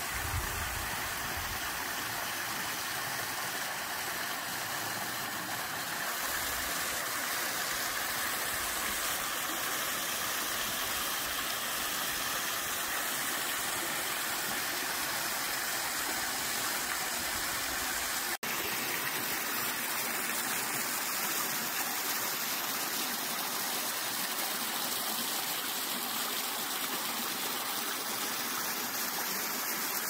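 Mountain stream cascading over granite rock ledges into a pool: a steady rush of falling and splashing water, with a momentary dropout about halfway through.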